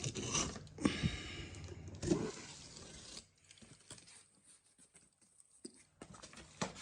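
A cardboard shipping box being cut open with a utility knife and handled: scraping and rustling with a few knocks over the first three seconds, then only faint ticks.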